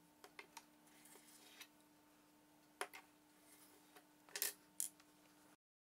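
Faint, scattered light clicks and taps from a small wooden ruler stop and steel rule being handled against a wooden workbench, over a faint steady hum.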